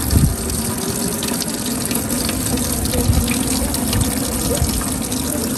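Water from an outdoor tap running steadily into a metal sink, splashing as small fish are rinsed by hand under the stream.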